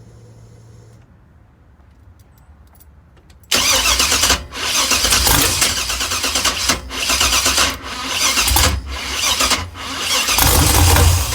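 Engine being cranked by its starter motor for about eight seconds without catching, the cranking rising and falling in rough surges: a no-start on an engine run by a Holley Terminator X Max fuel injection system. Before it, a faint hum stops and a few faint clicks come.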